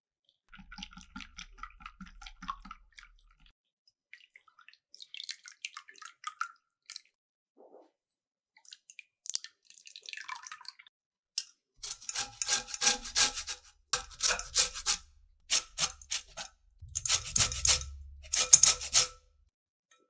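Utensil mixing ingredients in a bowl for muffin dough, going in bursts of quick scraping strokes. These get louder and denser in the second half.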